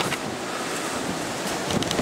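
Wind buffeting the microphone, a steady rushing noise, with a few faint clicks near the end.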